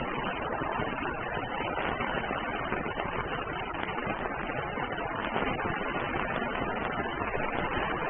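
Steady rain falling on an umbrella, a dense even patter with a few sharper single drops standing out here and there.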